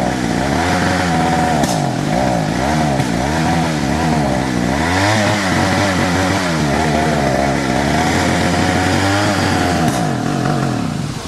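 Chainsaw revving up and down over and over, its pitch rising and falling about once a second, as it works on a poplar.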